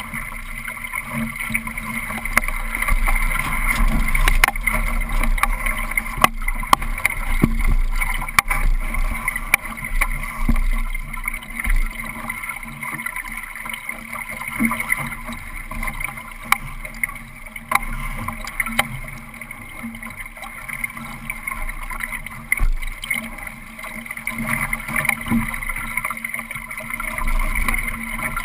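Water rushing and gurgling along the hull of a Solo sailing dinghy under way, a steady wash with scattered sharp knocks from the hull and fittings.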